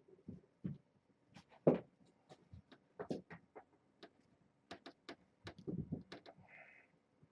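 Cats playing on a hard floor: irregular light taps, clicks and scrabbles of paws and claws, one knock a little under two seconds in the loudest, and a brief soft rustle near the end.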